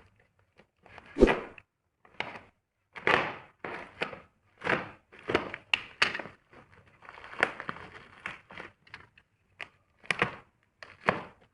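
A sharp knock about a second in, then a run of short scraping, slicing strokes with clicks: a utility knife cutting open a cardboard parcel and its packing tape.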